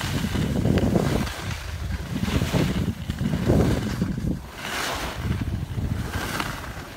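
Wind buffeting the microphone of a phone carried by a skier moving downhill, with skis hissing over the snow in a few swishes, the strongest past the middle and another near the end.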